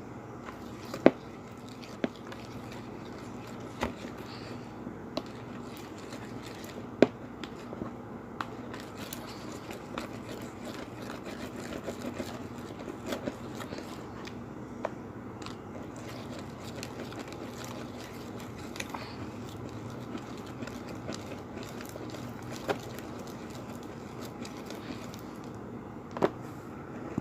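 Goopy, half-set homemade slime being stirred and scraped around a bowl, with a steady sticky scraping and crackling and a few sharp clicks of the stirrer against the bowl.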